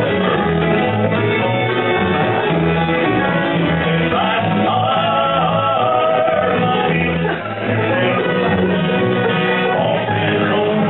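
Live bluegrass band playing: banjo and acoustic guitar among the plucked strings, with a singer's held notes over them.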